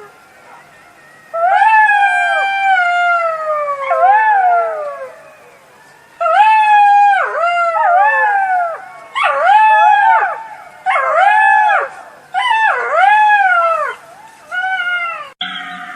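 Jackals howling: long, falling, overlapping howls, then a run of short wailing cries that rise and fall in pitch, about one a second.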